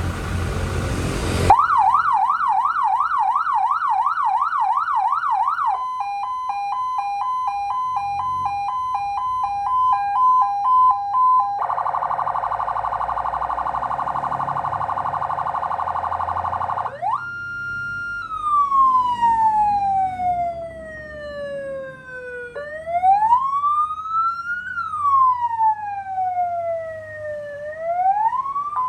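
Electronic emergency-vehicle siren stepping through its tones. It opens with a brief noisy blast, then runs a fast yelp, a high-low two-tone, a harsh buzzing tone, and a slow wail that falls and then rises and falls, switching back to high-low near the end.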